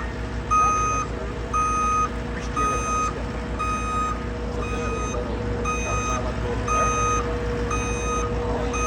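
Vehicle backup alarm beeping steadily, about once a second, over a low engine rumble.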